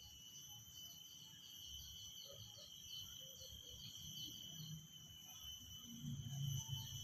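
Cicadas singing: a steady high-pitched drone with a quick run of repeated chirps over it, about three a second, that stops about two-thirds of the way in. A low rumble swells near the end.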